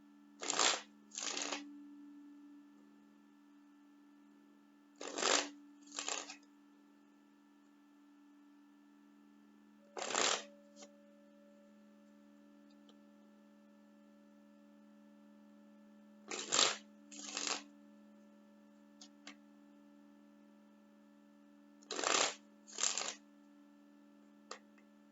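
Tarot cards being shuffled in short bursts, mostly in pairs, every five or six seconds, over a steady low electrical hum.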